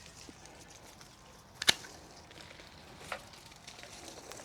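Pruning shears snipping rose stems: one sharp snip about a second and a half in and a fainter one near three seconds, over a faint steady hiss of light rain.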